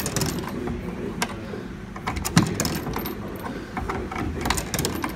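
Coins clicking and rattling in the coin slot of a coin-operated kiddie ride as they are fed in by hand, a scatter of sharp clicks over a low steady hum.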